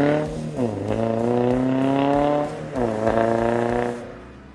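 2022 Toyota GR86's 2.4-litre flat-four through an AWE Touring Edition dual-muffler cat-back exhaust, accelerating through the gears. The engine note climbs, drops with an upshift about half a second in, climbs again, drops with a second upshift near three seconds in, then fades away near the end.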